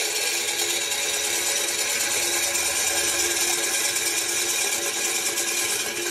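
Stainless steel electric corn mill grinder running with its hopper empty: a steady mechanical whir with one steady hum note.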